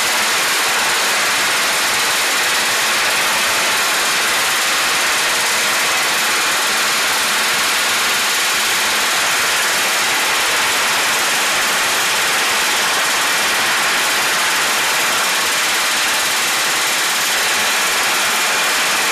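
Pneumatic rivet gun hammering continuously against a hot rivet in a steam locomotive boiler sheet, forming the rivet head.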